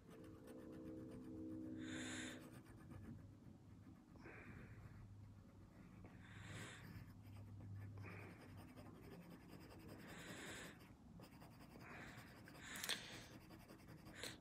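Faint scratching of an F graphite pencil on drawing paper in a series of short, separate strokes while a portrait is being sketched, with a sharper click near the end.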